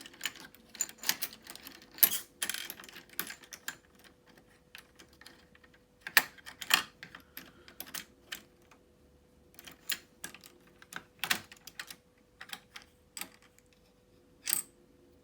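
Toy coins clicking and rattling against each other and the plastic drawer of a toy cash register as a hand rummages for a coin, in irregular clusters of sharp clicks, with a faint steady hum underneath.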